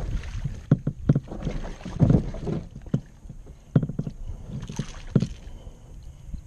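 Several irregular knocks and bumps on a plastic kayak's hull and gear as an angler shifts and works a rod and reel, over a low steady rumble of water and wind on the microphone.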